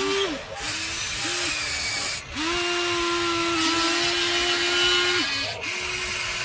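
Electric motors of a Huina radio-controlled toy excavator whining as its arm, boom and cab move, in stop-start runs: two short ones early on, one of about three seconds in the middle, and another near the end.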